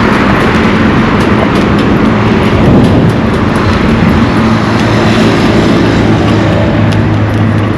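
Road traffic running close by: vehicle engines and tyres, with a steady low engine hum that grows stronger about five seconds in.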